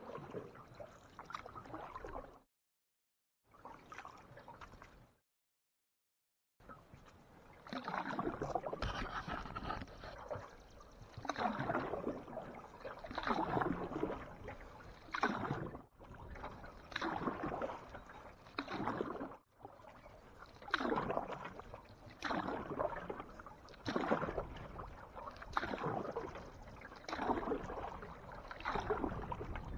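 Canoe paddle strokes pulling through lake water, a regular swish and gurgle about every second and a half. There are two short dropouts to silence in the first seven seconds.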